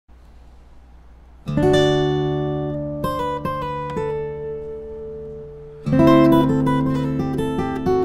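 Acoustic guitar music: a chord strummed about a second and a half in and left to ring, a few single picked notes, then another strummed chord near six seconds.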